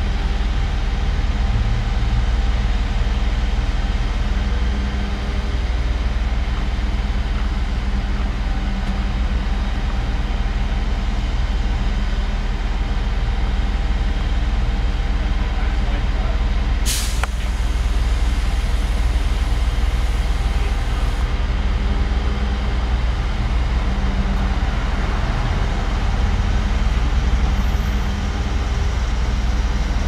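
Crane truck's engine running steadily with a low, even hum. A single sharp sound cuts through about halfway.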